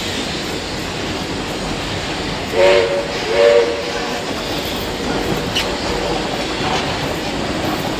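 Two short blasts from the train's locomotive, each a chord of several notes, about two and a half seconds in, over the steady rolling noise of the heritage train moving off, heard from aboard a carriage.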